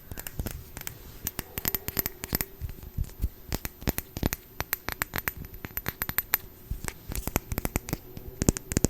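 Close-miked tapping, clicking and crinkling as a skincare serum bottle and its packaging are handled: many quick, irregular clicks, with a cluster of louder ones near the end.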